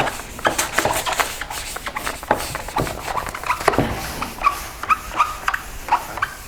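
Compound pad being dabbed and smeared by hand across a plastic headlight lens: irregular rubbing and tapping, with a few short squeaks in the second half.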